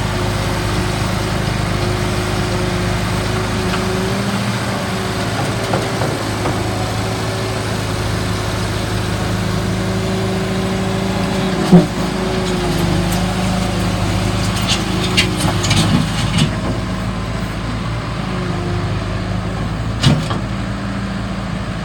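ASV 4810 skid steer loader's engine running steadily. A single sharp clank comes about halfway through, a few lighter metallic knocks follow a few seconds later, and another clank comes near the end.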